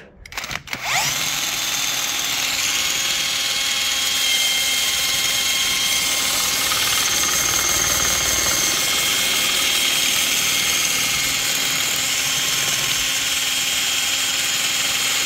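Cordless drill spinning an Audi A6 C4's alternator by its pulley nut, spinning up about a second in and then running steadily with a whine. A small scraping noise is in it, which the mechanic takes for the alternator as the possible source of a squeak.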